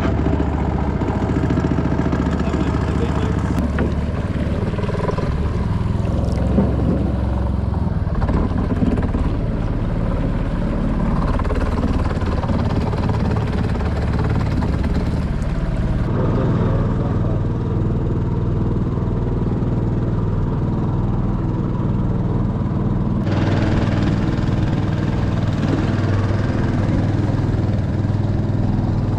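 Motorboat's outboard engine running steadily at cruising speed as the boat travels on the river. Its higher, hissing part cuts out abruptly about halfway through and comes back near the end.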